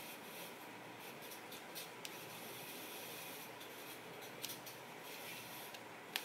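Fingertips rubbing and scraping on the plastic body of a JioFi JMR540 pocket router while pushing a SIM card into its spring-loaded slot. Faint small clicks, and a sharper click near the end.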